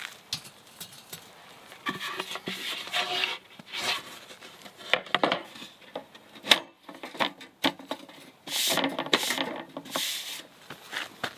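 Camp gear being handled: rustling and rubbing with scattered light knocks and clicks, and a sharp click about six and a half seconds in.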